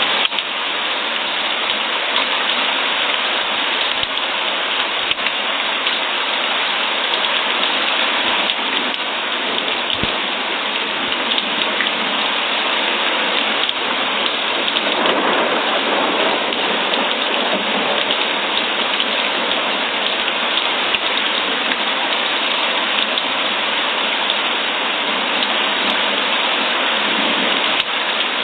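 Steady heavy rain, a dense even hiss of falling drops, with a brief swell in the low end about halfway through.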